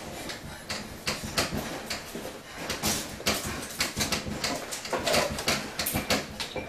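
Household objects rattling and knocking against each other in fast, irregular clatters while the house shakes in a major earthquake, the clatter thickest near the end.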